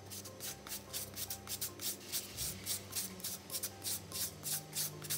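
Raw taro root being grated on a flat metal cheese grater: quick rasping strokes, about three a second.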